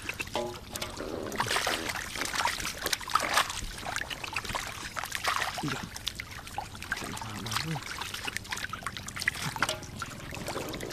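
Hands splashing and sloshing through shallow muddy water among grass, with water trickling and dribbling, as catfish are felt for and caught by hand.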